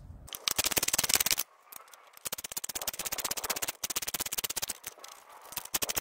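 Hand ratchet clicking rapidly, about ten clicks a second, in several runs with short pauses, as it drives screws into a mower engine's shroud.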